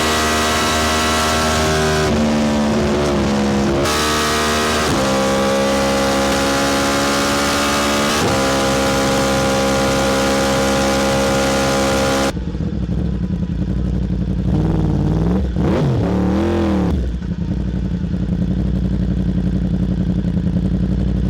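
Yamaha R1's inline-four engine through an SC-Project SC1-R exhaust, held at steady raised revs that step up and down several times. About twelve seconds in the sound turns suddenly duller and drops to idle, with two quick throttle blips before settling back to a steady idle.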